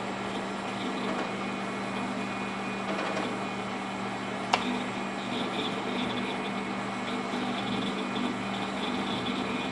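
Steady whir and hum of a running Pentium Pro desktop computer's fans, with a single sharp click about four and a half seconds in.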